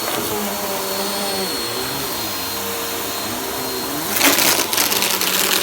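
Vacuum cleaner running with a steady whine that wavers in pitch. About four seconds in, loud crackling and rattling starts as crunchy debris is sucked up.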